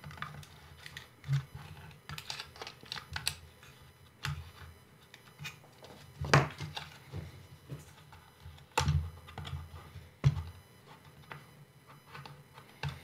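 Hard plastic clicking and tapping as a replacement motor arm is worked into a Hubsan Zino 2 Plus drone's body, with a few sharper knocks around six, nine and ten seconds in.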